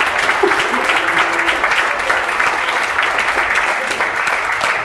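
A room full of people applauding, dense, steady clapping.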